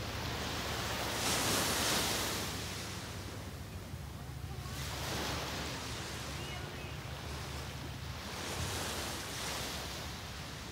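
Small surf breaking and washing up on a sandy beach, the hiss swelling with each wave about every three to four seconds, over a steady low rumble.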